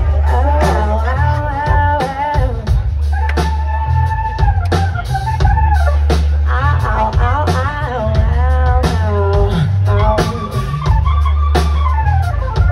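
Live blues-rock band playing amplified: a heavy bass line and a steady drum beat under wavering lead lines from electric guitar and keyboards.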